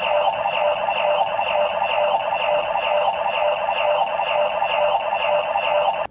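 Electronic standby loop of a Kamen Rider transformation belt sound effect: a steady buzzing tone overlaid with a quick repeating chirp, about three a second, cutting off suddenly at the end.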